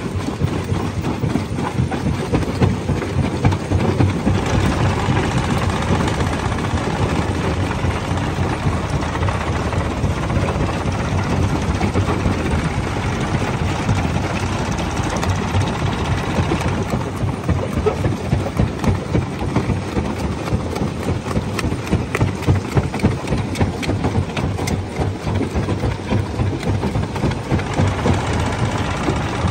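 Jaw crusher running under load with a continuous heavy mechanical drone, overlaid by dense, rapid cracking and grinding as rock is broken up.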